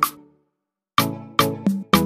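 Background music with a steady, percussive beat that cuts out for about half a second near the start, then picks up again.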